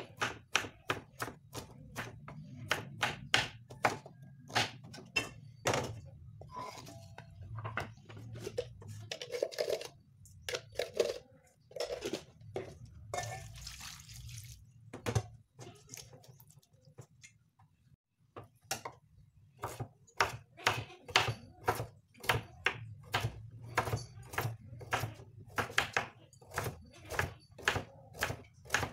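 Kitchen knife chopping on a wooden cutting board in quick, even strokes, first through broccoli stems and later through carrots. In the middle the chopping stops for several seconds of softer handling sounds with a short splash of water, and a low steady hum runs underneath.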